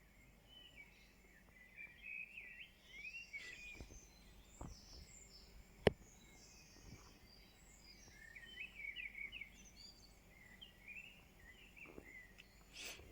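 Dawn chorus of songbirds singing faintly, with short twittering phrases from several birds, and one sharp click about six seconds in.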